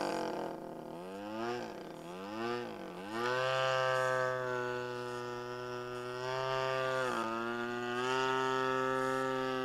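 RC model airplane's motor and propeller droning in flight with a steady pitch. Its pitch dips and recovers three times in the first few seconds, holds steady, then dips briefly again about seven seconds in.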